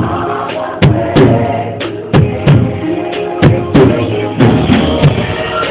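Music with a drum kit: sharp bass and snare drum hits, irregularly spaced, over held instrument chords.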